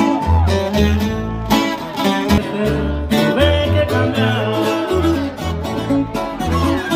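Music with plucked guitar over a steady, repeating bass beat.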